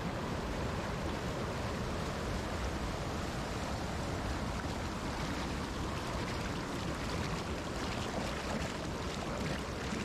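Mountain stream running high, its whitewater rushing and splashing steadily over rocks and a concrete ledge, heard close up.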